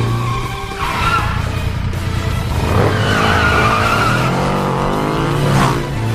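Cartoon sound effect of a stunt motorcycle engine running and revving, its pitch rising and falling in the middle. Music plays underneath.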